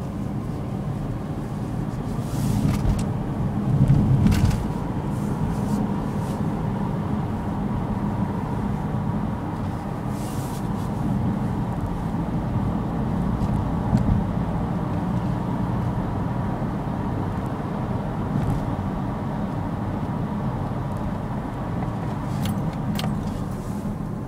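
Honda CR-V driving, heard from inside the cabin: a steady low rumble of engine and road noise, with a few short knocks and bumps about three to four seconds in and again around fourteen seconds.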